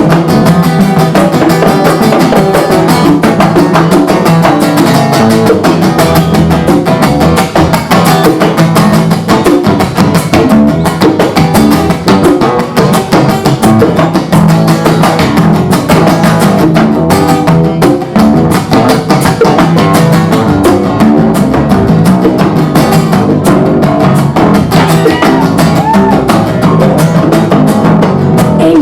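Instrumental acoustic guitar strumming in an upbeat rhythm, with hand percussion playing along and no vocals.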